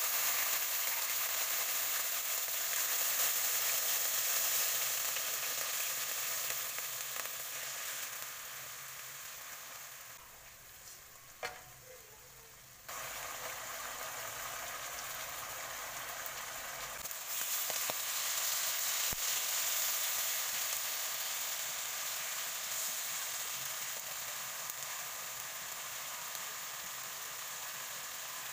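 Pieces of marinated pork sizzling as they pan-fry in hot oil in a nonstick wok. The sizzle dies down for a few seconds about ten seconds in, then comes back strongly.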